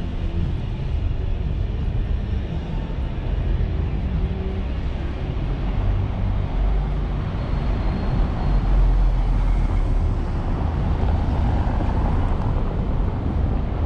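Steady low outdoor rumble of town street ambience, swelling a little for a few seconds past the middle.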